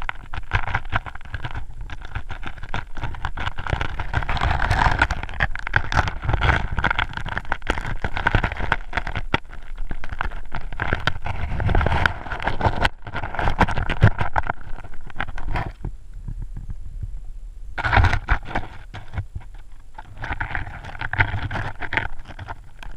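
Muffled underwater sound heard through a GoPro's waterproof housing in shallow water over pebbles: a low rumble and hiss of moving water, swelling and easing every few seconds, with many small clicks and knocks.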